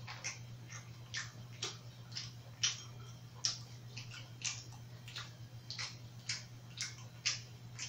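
Close mouth sounds of chewing food: short wet clicks and smacks at about two a second, over a steady low hum.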